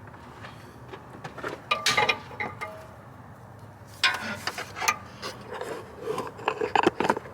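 Parts and hand tools being handled: scattered clinks, taps and scraping, in two bursts of activity about a second and a half in and again from about four seconds.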